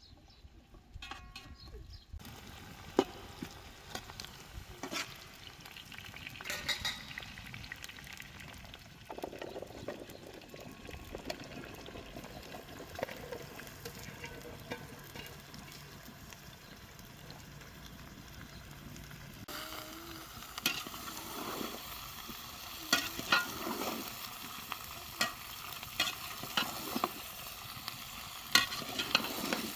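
Food frying and sizzling in a pan while it is stirred, the utensil clicking and scraping against the pan. The sizzle turns brighter and the clicks come more often about two-thirds of the way through.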